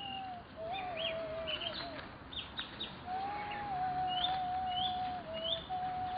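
A slow melody of long held notes on a flute-like wind instrument, sliding gently between pitches, with birds chirping over it. Short downward-sweeping chirps repeat through the second half.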